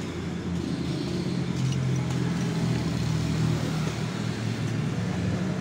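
A motor vehicle's engine runs steadily close by, a constant low drone, with a few faint metallic clicks as steel clutch plates are slid onto the clutch basket.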